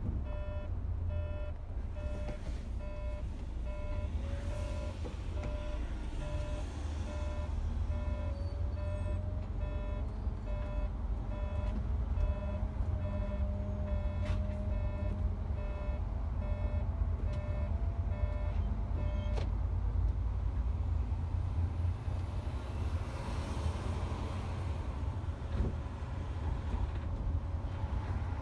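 Diesel engine and road rumble of a Mercedes-Benz Travego coach heard from inside the cab while it drives, with a repeating electronic warning beep, about two a second, that stops about two-thirds of the way through.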